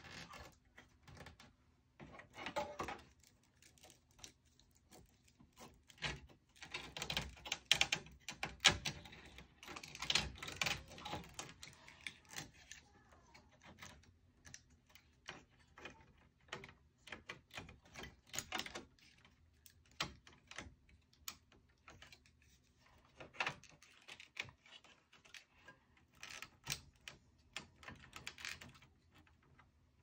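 Irregular clicks, taps and small rattles of server parts being handled and fitted back into a Dell R610 chassis during reassembly, coming in clusters with short pauses between.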